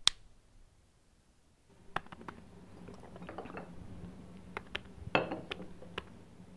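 A light switch clicks once. After a short pause come scattered soft clicks and clinks of someone at a laptop with a drink, over a faint steady hum, with a small cluster of louder clicks near the end.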